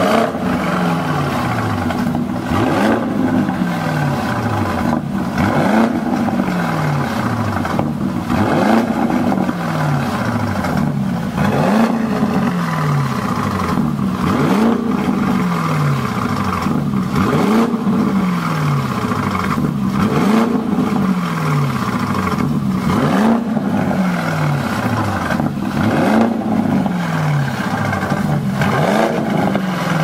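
Bentley Bentayga's 4.0-litre twin-turbo V8, breathing through a Fi Exhaust valvetronic cat-back, revved in repeated short throttle blips. Each rev climbs quickly and drops back toward idle, about one every couple of seconds.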